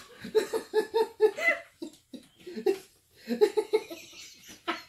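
People laughing in rapid ha-ha pulses, in two bouts with a short lull between.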